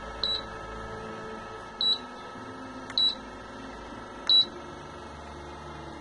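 Air-conditioner indoor unit's control board giving four short high beeps at uneven intervals, each acknowledging a button press from its infrared remote: the repaired remote's signal is being received. A steady low hum runs underneath.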